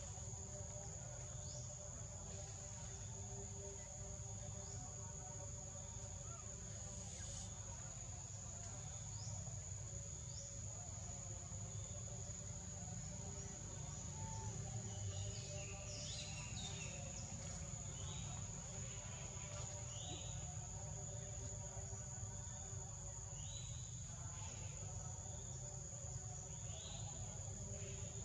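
Forest ambience: an insect drone holds one steady high tone throughout. Short, quick bird chirps come now and then, with a cluster in the middle, all over a low steady rumble.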